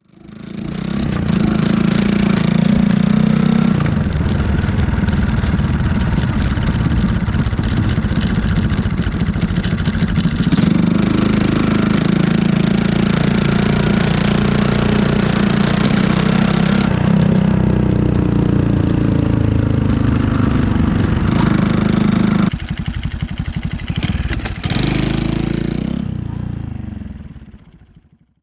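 Honda Jazz 50cc moped's single-cylinder four-stroke engine running, its note rising and falling several times as the throttle changes. It drops suddenly about 22 seconds in and fades out near the end.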